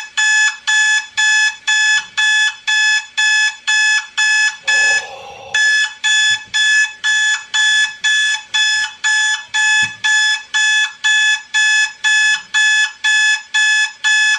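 Electronic alarm clock beeping rapidly and relentlessly, about three sharp, high-pitched beeps a second, played back from a recording. The beeping breaks off briefly about five seconds in, then carries on.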